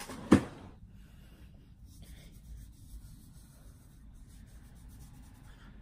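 A makeup wipe rubbing faintly across skin as makeup swatches are wiped off the hand and wrist. A single sharp click comes about a third of a second in.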